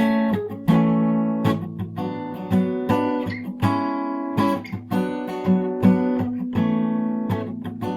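Acoustic guitar strumming chords in a song's instrumental passage, with no singing.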